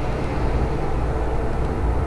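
Steady low rumbling background noise with a hiss over it, unchanging throughout.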